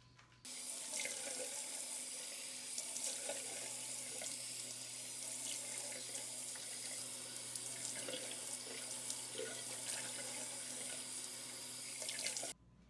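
Water running steadily from a tap into a sink, starting abruptly about half a second in and stopping abruptly near the end.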